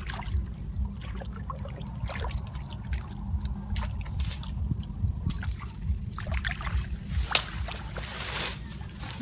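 Water splashing and trickling in irregular bursts over a steady low rumble, with one sharper splash or knock about seven seconds in.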